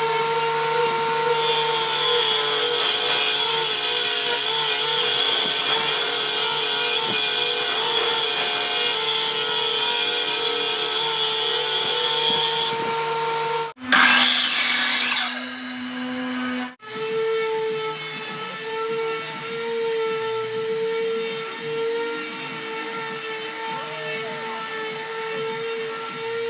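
A combination woodworking machine's motor hums steadily while a wooden board is fed across it, its blades cutting wood for about eleven seconds. After that comes a short, louder burst of power-saw cutting, then a steadier machine hum with lighter cutting noise.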